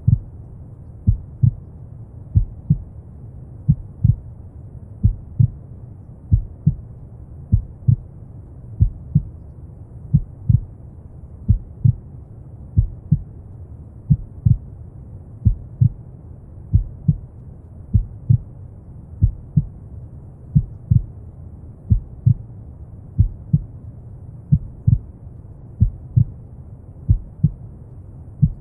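Heartbeat sound: slow, steady double thumps (lub-dub), about one pair every 1.3 seconds, over a constant brown-noise rumble.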